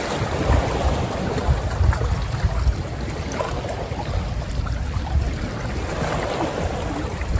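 Wind buffeting the microphone in uneven gusts, over water washing against shoreline rocks.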